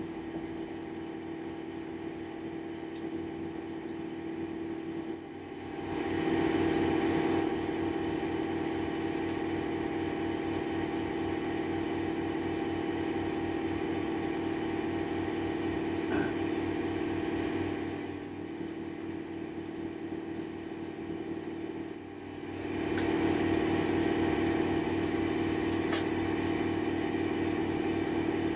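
Steady mechanical hum made of several fixed tones. It grows louder about six seconds in, eases off a little after the middle, and grows louder again near the end, with a few faint clicks.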